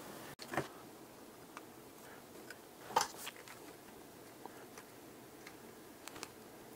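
Faint, scattered small clicks and taps from handling a soldering iron, copper desoldering braid and its spool against a circuit board while desoldering, with a clearer click about three seconds in.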